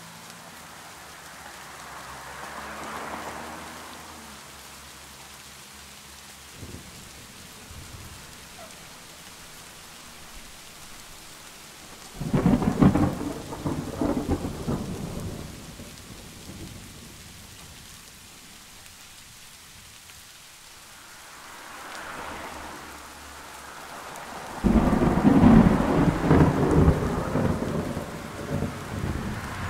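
Steady rain with two long rolls of thunder, the first about twelve seconds in and the second near the end.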